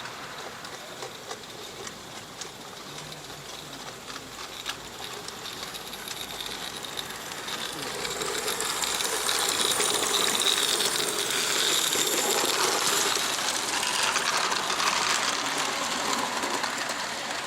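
A 16mm-scale live steam model locomotive running with a rapid, even chuffing and clicking. It grows louder about halfway through as it comes close, then eases off slightly near the end.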